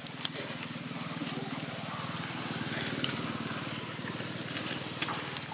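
A small engine running steadily in the background, a low even hum, with a few soft clicks.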